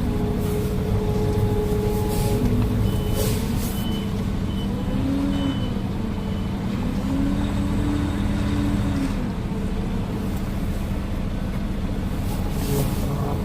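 Concrete mixer truck's diesel engine running steadily, its pitch rising and falling a little in the middle. A string of about five short high beeps sounds about three to six seconds in.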